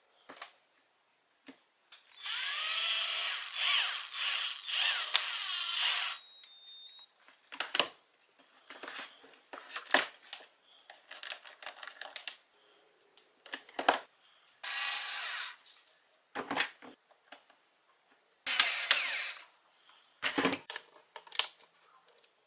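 Small handheld power driver whirring in three runs: a longer one of about four seconds near the start and two brief ones later. Sharp clicks and knocks of parts being handled come in between.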